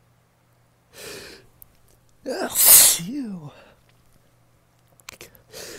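A man's loud sneeze about two seconds in, set up by a sharp breath in, ending in a voiced 'choo' that falls in pitch. Another breath is drawn near the end. It is one of a long run of sneezes set off by heavy air freshener spray.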